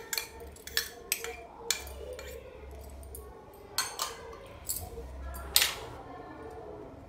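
Metal spoon clinking and scraping against a small steel bowl and a glass mixing bowl as chopped onion is tipped in: a scatter of sharp clinks, the loudest about five and a half seconds in. A faint steady hum runs underneath.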